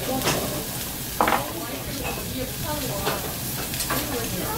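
Lamb and vegetables sizzling steadily on a hot domed jingisukan grill, with a few sharp clicks of metal tongs against the grill and meat, the loudest about a second in.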